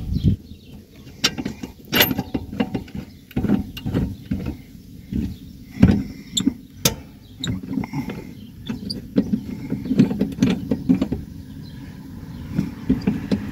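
Irregular metallic clicks and knocks of a hand wrench tightening the rear shock absorber's mounting nut, over a low rumble.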